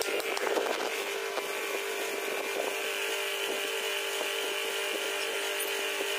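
Electric pedestal fan running: a steady whir with an even hum. A few light clicks come in the first second.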